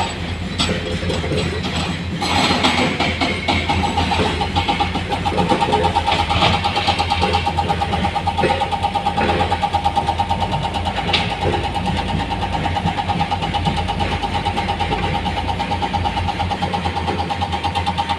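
Heavy diesel engine running steadily under a constant whine, with scattered short knocks and clatters throughout.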